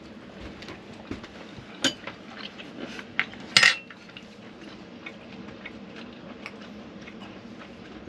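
Cutlery clinking against a plate: a handful of scattered clinks, the loudest one ringing briefly about three and a half seconds in.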